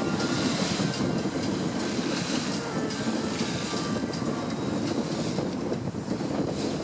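Engine of a small inflatable tender running steadily under way, a low rumble with water hissing and splashing along the hull.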